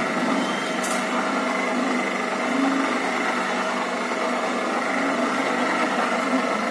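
Porridge mixer's 1/4 HP single-phase electric motor running steadily through a worm-reduction gearbox, turning a stainless-steel paddle through thick porridge: an even mechanical hum. A short high click about a second in.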